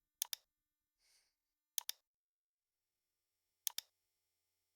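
Computer mouse clicking three times, about two seconds apart, each click a quick pair of sharp ticks as the button is pressed and released.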